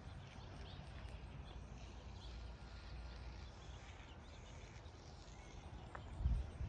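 Footsteps of someone walking on bare dirt, with a low wind rumble on the microphone; the thumps grow louder near the end.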